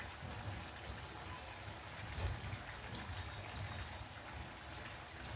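Maida bondas (fritters of maida flour and sour curd batter) deep-frying in hot oil, a steady sizzle with scattered fine crackles.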